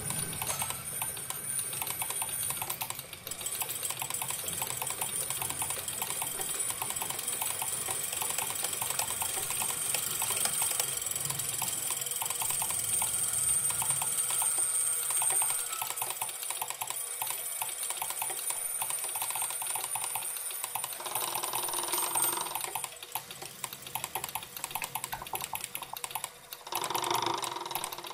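Electromechanical relays and small motors chattering in dense, fast clicks, over a thin high whine that stops about two-thirds of the way through. Two short, louder mid-pitched swells come near the end.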